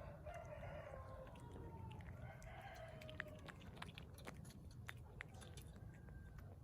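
Stray cat eating and vocalizing at the same time: two drawn-out calls through a mouthful of food, then chewing with many sharp clicks and smacks.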